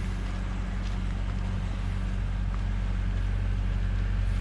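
A steady, low mechanical hum, like an engine or motor running at constant speed.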